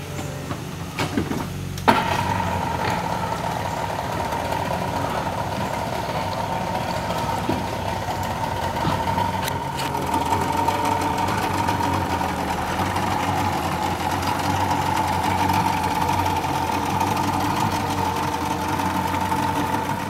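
Boat's outboard motor running steadily. About two seconds in it gets louder and a steady high whine joins the engine hum.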